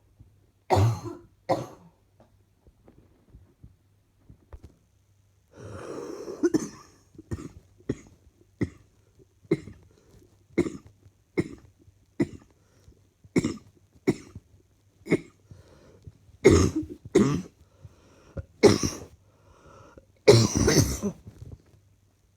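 A person coughing over and over. There are two coughs near the start and a longer, rougher cough about six seconds in. Then comes a run of short coughs, roughly one every three-quarters of a second, building to a few harder coughs and one long, loud cough near the end.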